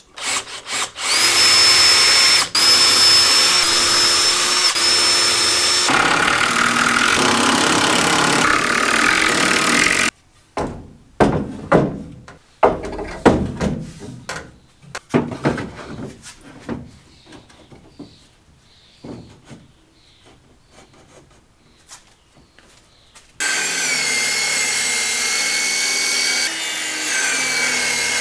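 Power drill with a 5/32 bit pre-drilling pilot holes for bolts in wood, its motor whining steadily for about nine seconds before stopping. A series of irregular knocks and light clicks follows. Near the end the drill starts again at a lower pitch.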